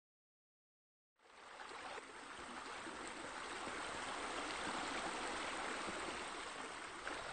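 Steady running, trickling water of bubbling urn fountains, coming in about a second in and then holding steady.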